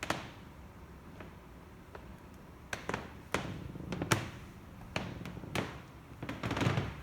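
A string of irregular knocks and clacks, several sharp ones in the middle and a brief clattering run near the end, like hard objects being handled and set down.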